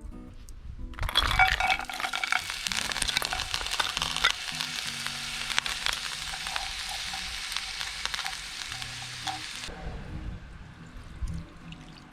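Food sizzling and crackling in hot oil in a cast-iron skillet, starting suddenly about a second in as it hits the pan and cutting off sharply a couple of seconds before the end.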